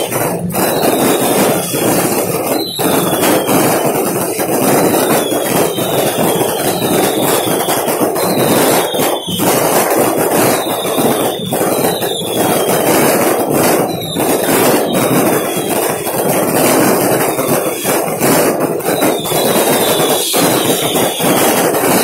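Dense fireworks barrage: loud, continuous crackling and popping with frequent sharp bangs. A high falling whistle repeats about once a second over the crackle.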